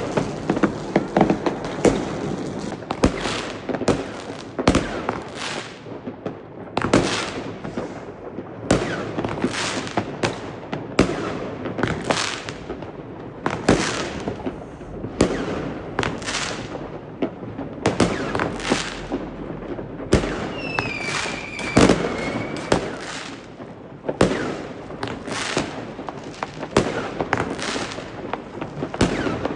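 Fireworks and firecrackers going off in quick succession: a dense run of sharp bangs and pops, each dying away briefly before the next. About two-thirds of the way in, a high whistle sounds for about two seconds among the bangs.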